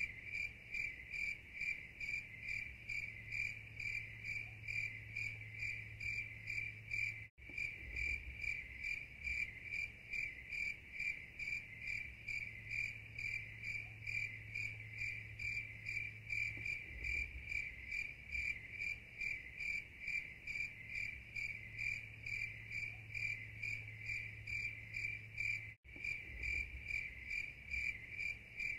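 Crickets chirping in a steady, even rhythm, a little over two high-pitched chirps a second, with a faint low hum underneath.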